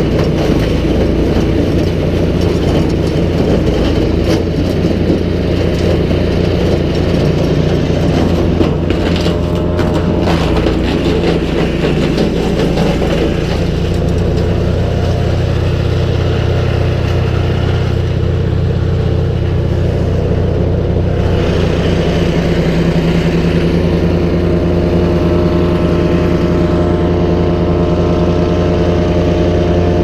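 Nova GTS1500 wood chipper's engine running steadily at working speed. A few brief crackles come about nine to ten seconds in.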